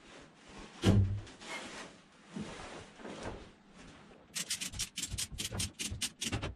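A heavy thump about a second in, with scraping and rubbing, then from about four seconds in a fast, even rasping of about five strokes a second: a winch rated for 4 tons being cranked to haul a heavy window up.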